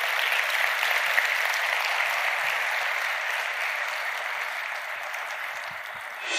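Audience applauding, growing slowly quieter toward the end.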